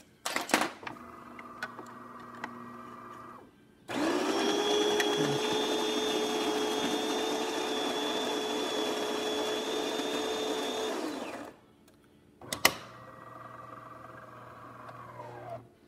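DeLonghi Magnifica super-automatic espresso machine starting a short coffee. Its built-in grinder runs loud and steady for about seven seconds. Before and after it come sharp clicks and the quieter hum of the brew unit's gear motor, whose pitch drops near the end.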